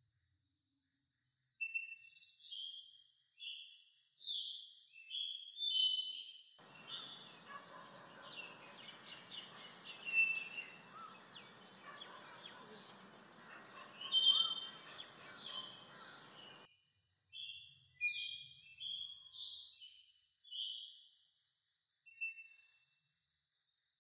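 Bird calls: a series of short whistled notes that slur downward, over a steady high buzz. From about a quarter of the way in to about two-thirds, a louder stretch of outdoor sound with a broad low hiss carries denser, rapid calls.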